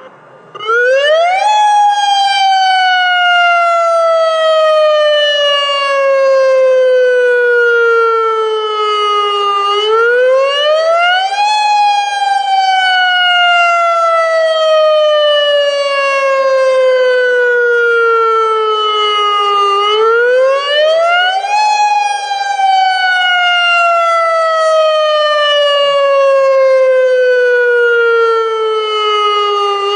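AHAB (All Hazards Alert Broadcast) tsunami warning siren, a Federal Signal Modulator electronic siren, sounding its wail tone, the signal used in real emergencies. The pitch climbs quickly for about a second and a half, then slides slowly down for about eight seconds, and the cycle repeats about every ten seconds.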